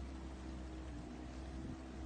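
Outboard motor of a small aluminium boat running at a steady speed, a low, even hum, with water washing along the hull.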